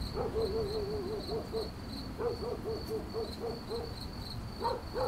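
Crickets chirping in an even, repeated high-pitched pulse, with a lower animal call repeating a few times a second beneath them: a night-time nature ambience.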